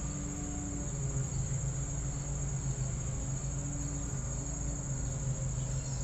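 Insects droning steadily at a high pitch, over a constant low hum.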